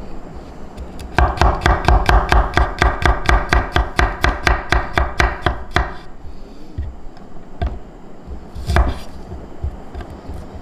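Kitchen knife chopping quickly and evenly on a cutting board, about five strokes a second for some four and a half seconds. Then a few single cuts follow, and one heavier knock about nine seconds in.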